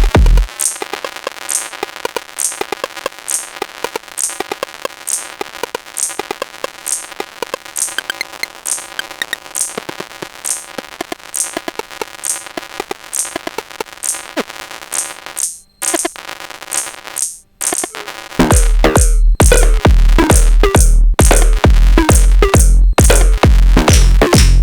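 Techno beat from a Sonic Potions LXR-02 digital drum machine playing a breakdown. The kick drum drops out about half a second in, leaving hi-hats and percussion over a held tone. The sound cuts out twice briefly before the kick comes back with a fill about three quarters of the way through.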